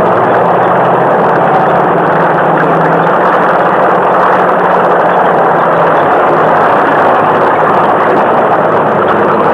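Loud, steady engine noise, a dense rushing drone over a low hum, holding level throughout.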